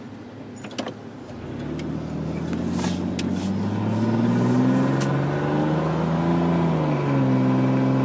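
Straight-piped Chevy pickup's exhaust droning as the truck pulls away and gets louder, its pitch climbing, then dropping about seven seconds in and holding steady. Heard from inside the cab.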